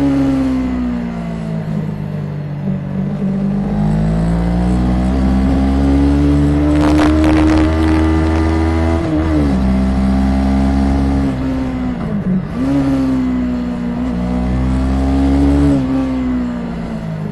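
Honda CB500 motorcycle engine heard from on board while riding. The revs sink at first, then climb for several seconds and drop sharply about nine and again about sixteen seconds in, as with gear changes. A short burst of crackling noise from the recording comes about seven seconds in.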